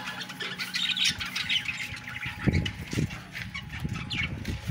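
Small birds chirping and calling throughout, with two dull thumps about halfway through as the metal box of rabbits is handled and set down.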